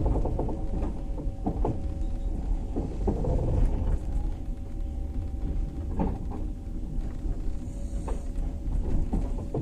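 Passenger train carriage rolling slowly along the track, heard from inside: a steady low rumble with irregular knocks as the wheels run over rail joints, and a steady hum underneath.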